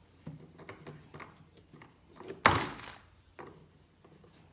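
Hard plastic parts of a pressure washer being handled: small knocks and rubbing, with one loud sharp clack about two and a half seconds in.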